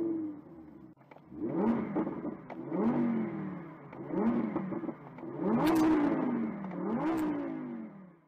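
Car engine revved hard about six times in a row, each rev rising quickly in pitch and falling away, with two sharp cracks near the end.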